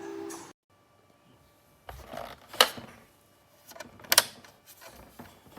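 A few sharp clicks and knocks, loudest about two and a half seconds in and again about four seconds in, after a snatch of music cuts off half a second in.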